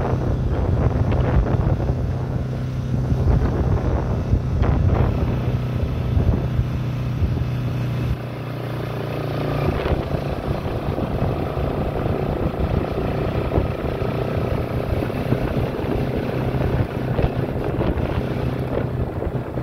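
Motorcycle engine running steadily at cruising speed, with a low rumble of wind on the microphone that eases about eight seconds in.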